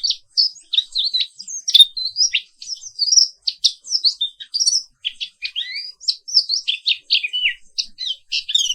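Papuan white-eye (pleci Papua) singing a fast, continuous twittering song of short high notes that rise and fall, with only brief breaks.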